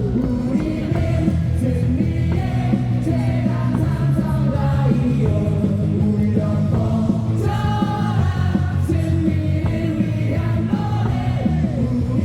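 Stadium crowd singing and shouting a baseball cheer song along with loud amplified rock-style music.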